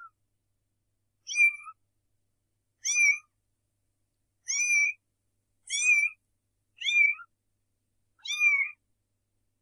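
Young kitten mewing: six short, high-pitched mews, roughly one every second and a half.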